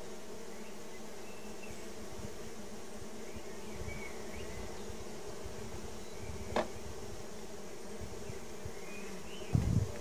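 Steady buzzing hum of a honey bee colony around an opened Langstroth hive. A single sharp knock comes about two-thirds of the way through, and a low thump near the end.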